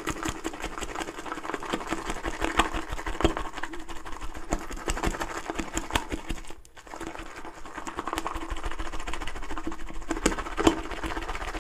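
Proraso shaving brush whipping Cella soap into a thick, meringue-like lather in a bowl: a rapid, steady run of wet swishing and clicking, broken by a brief pause a little past halfway.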